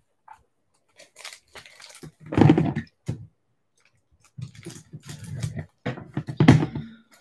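Plastic-bag trading card pack crinkling and rustling as it is handled and opened close to the microphone, in irregular bursts that are loudest about two and a half seconds in and again near the end.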